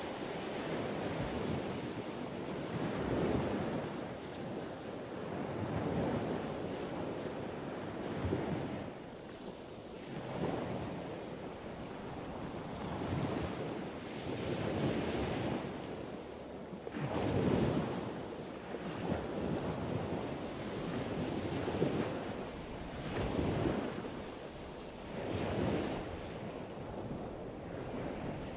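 Wind buffeting the microphone over water lapping against the wharf, the noise swelling and easing every couple of seconds.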